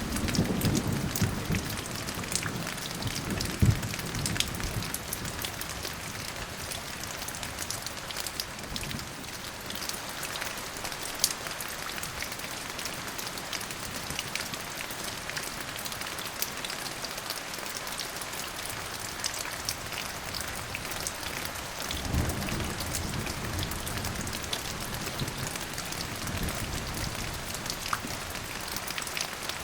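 Steady rain falling, with individual drops ticking sharply over the hiss. Low thunder rumbles in the first few seconds and rolls in again about two-thirds of the way through.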